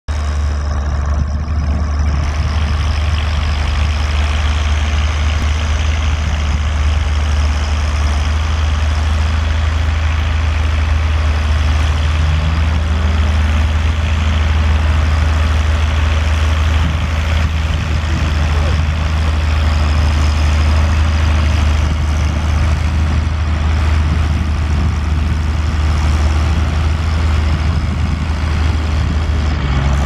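International Harvester 955 tractor's diesel engine running steadily under load while pulling a plough, with a brief rise in pitch about twelve seconds in.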